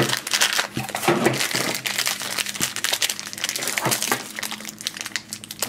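Crinkling and rustling of toy blind-pack packaging being opened by hand: a small cardboard box pulled open, then the yellow plastic wrapper inside crumpled and torn, with many small irregular crackles.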